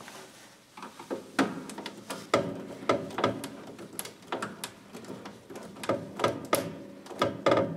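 Screwdriver working a plastic screw terminal block, making irregular small clicks, taps and scrapes as a wire is fitted and the terminal screw tightened.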